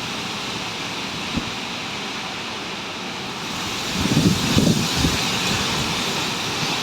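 Strong storm wind blowing steadily with a rushing hiss, gusting harder about four seconds in and buffeting the microphone with low rumbles.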